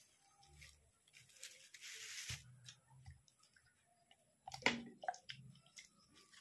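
Soft ube-filled German bread being torn apart by hand, with a brief rustling tear, amid close-up chewing. A short sharp knock about two-thirds of the way through is the loudest sound.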